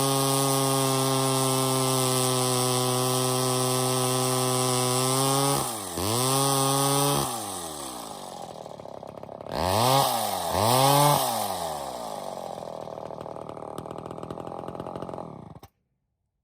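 Poulan 306 two-stroke power head driving a Wright 100 reciprocating blade saw. It runs at a steady high speed, dips and picks up again, is revved up twice, and falls back to a lower, uneven idle before the sound cuts off suddenly near the end.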